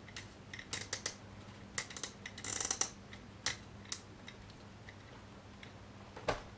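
Light clicks and taps of a small old pipe with a briar bowl and wind cap being turned over in the hands, with a short rustle about two and a half seconds in and a sharper knock near the end.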